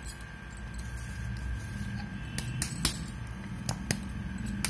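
A few sharp light clinks of a steel bowl and utensil against a ceramic plate, mostly in the second half, over a low steady background hum.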